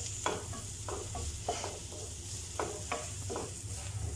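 Wooden spatula stirring and scraping chopped onion, carrot and ground spices around a non-stick frying pan, in uneven strokes about every half second, over the steady faint sizzle of the vegetables frying in oil.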